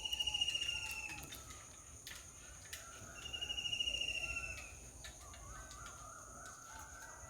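Bird calls: two long trilled calls, each falling slightly in pitch, about three seconds apart, then softer chirps. A steady high-pitched drone runs underneath.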